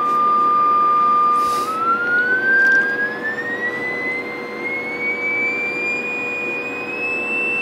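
Audio test tone from an analog tone generator, holding steady just above 1 kHz, then rising smoothly in pitch to near 3 kHz as the frequency knob is turned, over a steady hiss and a fainter lower hum. The tone is the modulating signal for an AM CB transmitter being tested.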